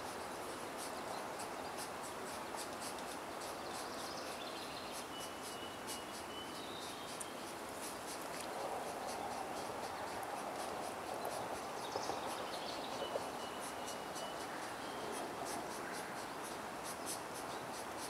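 Outdoor ambience: a steady hiss with rapid, irregular high-pitched ticking throughout, and a faint thin whistle that comes and goes a few times.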